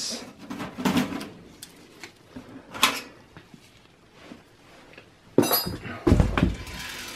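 Light metallic clicks and clinks of a steel computer case's expansion-slot latch and bracket being handled and worked loose, a few separate clicks, then a louder scuffle with a low thump near the end.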